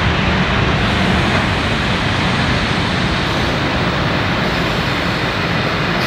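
A train of carriages rolling past and drawing away, a steady rush of wheel and rail noise with no horn.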